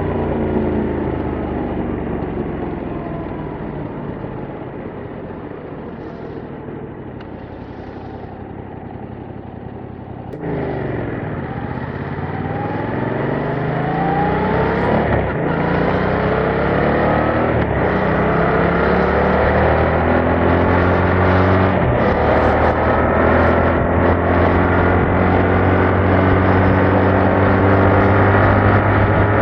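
Yamaha MT-07's parallel-twin engine through its stock exhaust: for about ten seconds it winds down off the throttle, falling in pitch and getting quieter, then it opens up and accelerates through a few gears, rising in pitch in repeated sweeps and growing louder.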